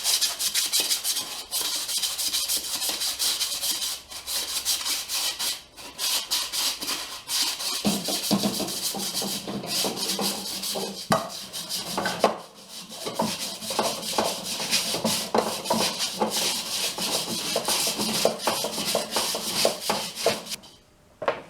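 Fast, steady rubbing strokes, as of a hubcap being hand-scuffed with an abrasive. From about eight seconds in, background music joins it, and the sound cuts off shortly before the end.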